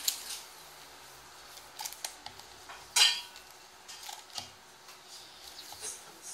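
Electrical tape being pulled off its roll and wound tightly around a plastic headphone headband: short rasps of tape peeling and stretching, the loudest about three seconds in, among small handling clicks.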